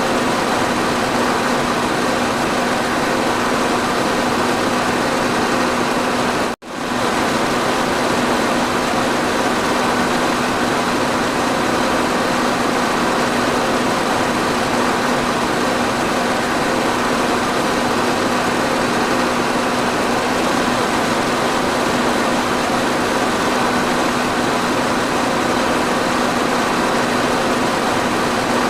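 Electric fan running steadily: an even rush of air with a constant low hum. It cuts out for a split second about six and a half seconds in, then carries on unchanged.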